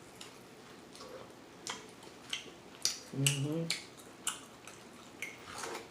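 Open-mouthed chewing of sauced chicken wings: a string of wet smacking clicks of the lips and tongue, about one every half second to second. About three seconds in, the eater's voice gives a short low hum.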